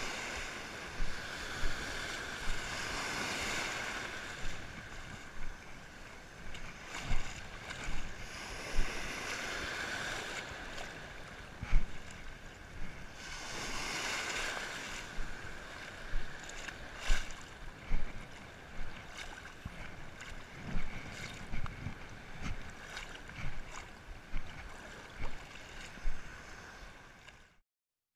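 Shallow surf washing and breaking in slow swells, with frequent short splashes of water right at the microphone and some wind noise. It cuts off suddenly near the end.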